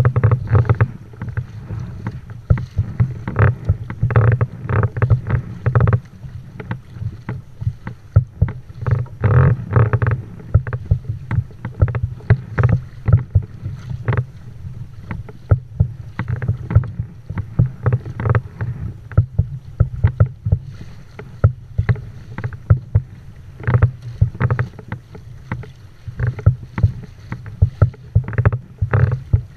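Kayak hull pushing through choppy sea: water slapping and splashing against the bow in frequent irregular knocks, over a steady low wind rumble on the microphone.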